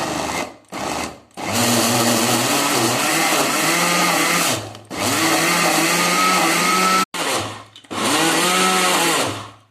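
Electric food processor grinding soaked split fava beans, onion, garlic, herbs and leeks into falafel paste, run in pulses: two short bursts, then longer runs of about three and two seconds, a brief burst, and a last run of about a second and a half. The motor's pitch wavers as the load shifts.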